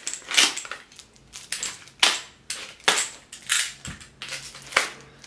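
Box cutter slicing through a plastic-wrapped cardboard book mailer, then the cardboard being torn and pulled open, in a series of short, sharp crackling strokes.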